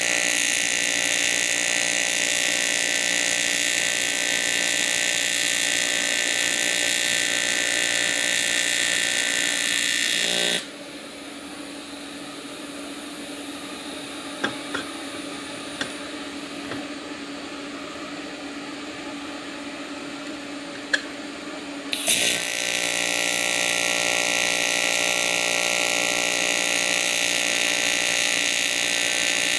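AC TIG welding arc on aluminum tube at about 77 amps, giving a steady, loud buzz. It cuts off about ten seconds in, leaving a quieter stretch with a few faint clicks, then the arc restrikes and buzzes steadily again about eleven seconds later.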